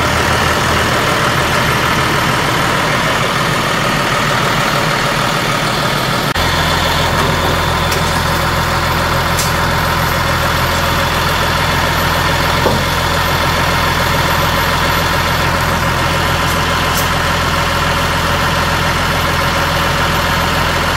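John Deere 3350 tractor's diesel engine idling steadily, its low rumble growing stronger about six seconds in.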